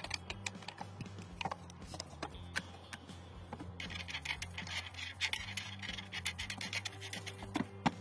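Scratching and small metallic clicks as the parts of an AK-style rifle are handled. About halfway through, a dense gritty scraping runs for a few seconds as the front sight and muzzle assembly is twisted against the handguard. A steady low hum runs underneath.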